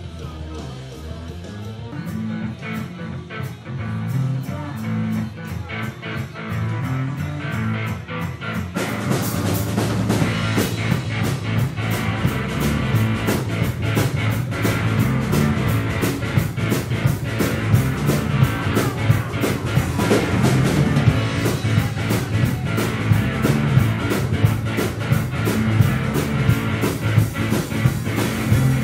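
Live rock band playing electric guitars and drum kit. It starts quieter, mostly guitar, and about nine seconds in the drums and cymbals come in with the full band, louder.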